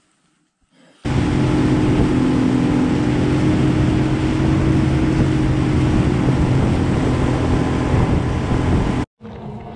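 Boat motor running steadily at speed, a constant engine hum with a rush of noise over it. It starts suddenly about a second in and cuts off abruptly near the end.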